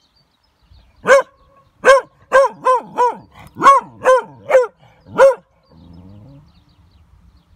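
A beagle hound barking at bay, about nine short sharp barks over some four seconds, starting about a second in: the dog has found and is holding quarry, here a tortoise.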